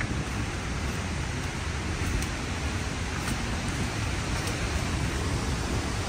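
Steady rush of falling water from a waterfall, an even, unbroken noise, with a few faint ticks over it.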